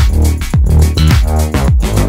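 Electronic dance music with a heavy kick drum about twice a second.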